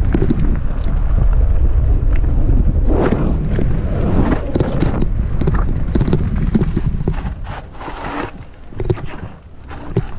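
Wind buffeting a fast-moving camera's microphone, a heavy low rumble, with scattered sharp clicks and knocks. The wind rumble eases about three-quarters of the way through, leaving the knocks and rattles clearer.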